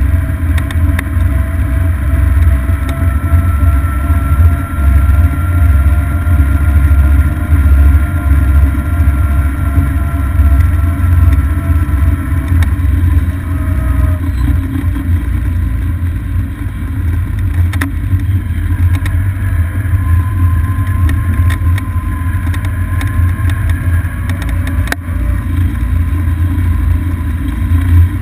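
Golf cart driving along a paved road, heard from a camera mounted on the cart: a loud, steady low rumble with a faint whine that slowly shifts in pitch. A single sharp click about 25 seconds in.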